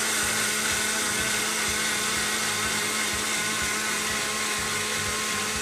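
Electric mixer grinder with a stainless-steel jar running steadily at full speed, grinding soaked raw rice with coconut milk and cooked rice into a smooth batter.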